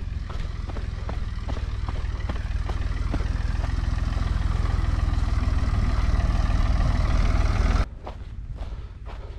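Running footsteps on a dirt trail, with an ATV's engine running and growing louder as it comes closer over a heavy low rumble. The engine noise cuts off suddenly near the end, leaving only footsteps.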